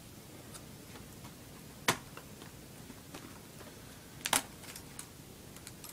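Sharp plastic clicks and snaps from an Acer laptop keyboard being pried out of its retaining clips with a small flathead screwdriver. There is one loud snap about two seconds in, a quick double snap a little past four seconds, and fainter ticks in between.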